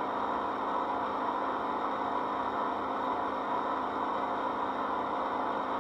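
O gauge model GG1 electric locomotive giving a steady whirring hum, with no changes or knocks.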